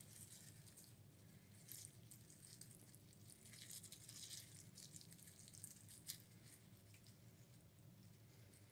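Faint trickle of water poured in a thin stream onto soaked perlite in a small plastic pot, with a few soft ticks.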